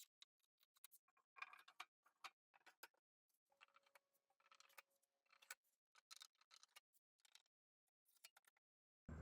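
Near silence broken by faint, irregular light clicks and ticks, several a second, with dead quiet between them.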